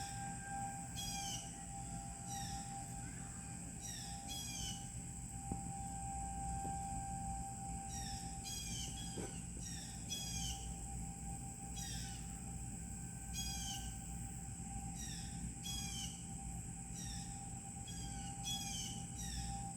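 Distant outdoor tornado warning siren sounding one steady tone that slowly swells and fades as it turns, under birds calling with short downward-sliding chirps about once a second and a steady high-pitched drone.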